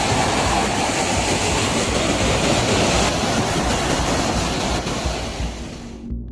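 Fast-flowing muddy floodwater rushing and pouring over a low wall, a steady dense rushing noise that fades out near the end.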